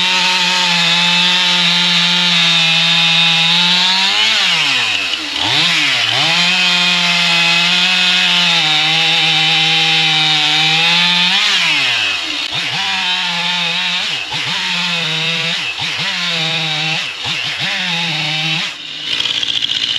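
Stihl MS 271 two-stroke chainsaw revved up to full throttle and held there, the revs dropping and climbing back twice, then a series of short throttle blips before it falls to a lower, rougher speed near the end.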